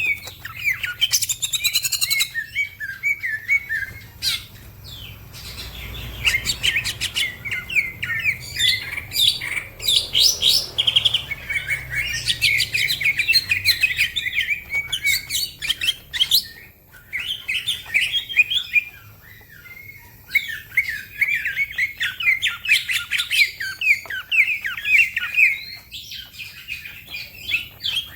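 Cucak ijo (green leafbird) singing vigorously: fast, dense chirps and trills in long bursts, broken by a couple of short pauses.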